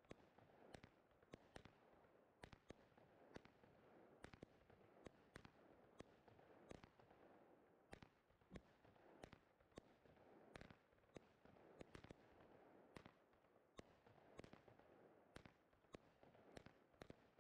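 Faint fireworks from a 20 mm-calibre compound cake (Verbund) firing: sharp cracks of shots launching and breaking, irregular and about two a second, over a faint steady background.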